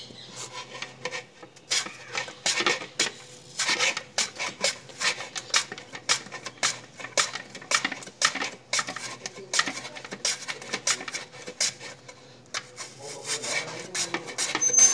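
Raw peeled potato slid back and forth across a handheld metal chips slicer, cutting chip slices: a run of quick rasping strokes with a few short pauses.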